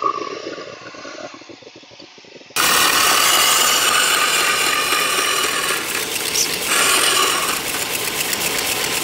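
Shopsmith belt sander running while a steel round-nose scraper is ground against the abrasive belt in the sharpening guide: a loud, steady grinding with a motor hum underneath. It starts abruptly about two and a half seconds in, after quieter mechanical rattling and ticking.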